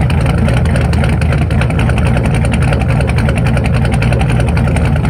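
Paxton-supercharged 2008 Ford Mustang GT's 4.6-litre three-valve V8, with Detroit Rocker cams, shorty headers and Flowmaster mufflers, idling loud and steady at the tailpipe.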